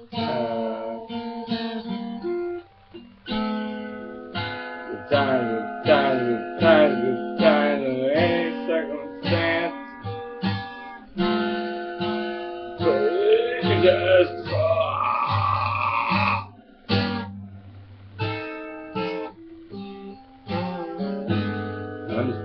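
Solo guitar in an unconventional tuning, played as a run of picked notes and strummed chords that ring out and decay.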